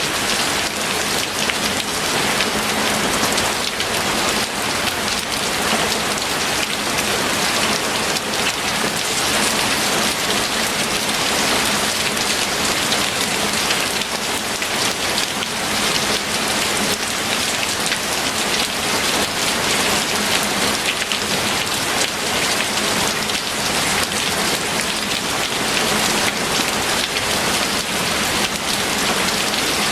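Steady heavy rainfall, a dense even patter of drops hitting a surface without letup.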